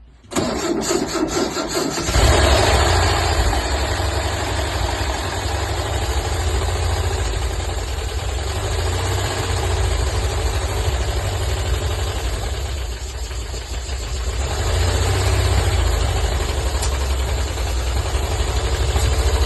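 An engine cranks for about two seconds, catches and settles into a steady running rumble. It eases off briefly about two-thirds of the way through, then picks up again.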